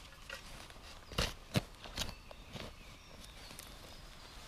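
Shovel blade digging into forest soil: a few short chops and scrapes in the first two and a half seconds, then faint rustling as a hand works through the loosened earth and dry grass.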